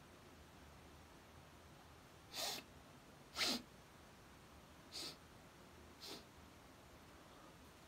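Four short, sharp breath sounds from a man over a few seconds, the second one the loudest, over faint room hiss.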